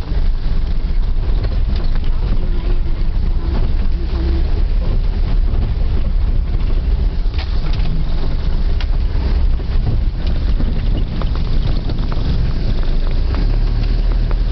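A car driving along a road: a steady low rumble of engine and road noise, with a few short knocks in the middle.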